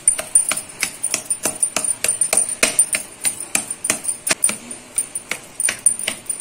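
Bottom of a greased steel bowl tapped and pressed over and over onto coconut burfi mixture on a metal board to flatten it: quick sharp metallic taps, about three or four a second.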